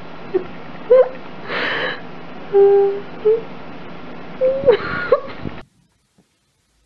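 Shiba Inu puppy whining: short whimpers that slide up and down in pitch, mixed with a few louder, noisier bursts. The sound cuts off abruptly about five and a half seconds in.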